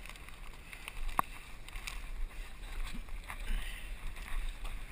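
Low muffled rumble with scuffing as mud-run participants crawl through dirt under wires, and one sharp knock about a second in.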